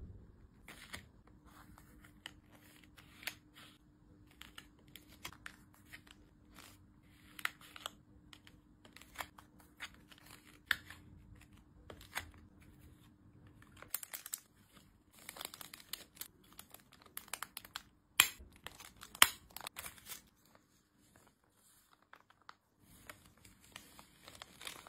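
Paper cards and packaging being handled: rustling, sliding and light sharp taps, in many short bursts, then the crinkle of a foil pouch near the end.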